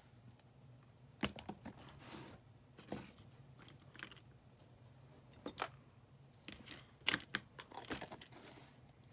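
Scattered light clicks and taps with brief rustling as craft supplies are handled and plastic paste jars are closed.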